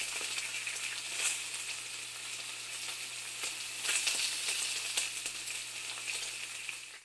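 Food frying in a hot pan: a steady sizzling hiss with scattered crackles and spits, cutting off suddenly at the end.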